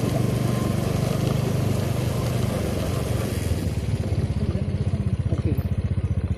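Motorcycle engine running with an even, rapid pulse.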